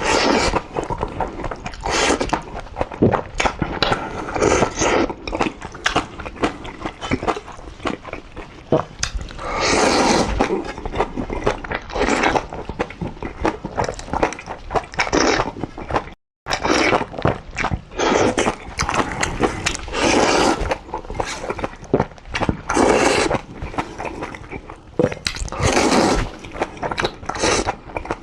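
Close-miked eating of black bean noodles (jjajangmyeon): wet chewing and lip smacking broken by several long slurps of noodles, with a brief cut to silence about halfway.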